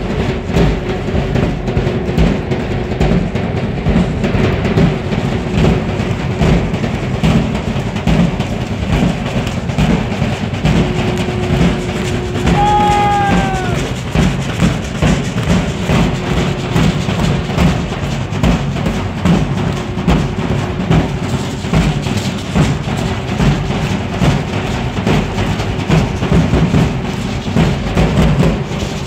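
A group of large bass drums beaten in a steady dance rhythm, with a steady held tone underneath and a short sound that slides down in pitch about halfway through.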